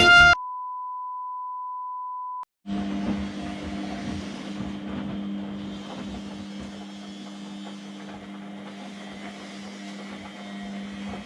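Music cuts off, and a steady electronic beep tone sounds for about two seconds and stops. After a short gap, an AEG washing machine runs with a steady low hum over a faint churning noise.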